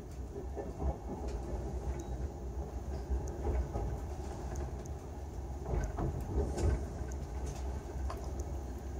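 Railjet passenger train running, heard from inside the coach: a steady low rumble with occasional short clicks and knocks, which bunch together a little past the middle.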